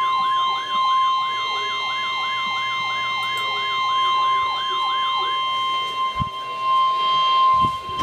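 Emergency alert attention signal: a steady high tone with a fast-warbling siren sweeping up and down over it about three times a second. The siren stops about five and a half seconds in, leaving the steady tone alone.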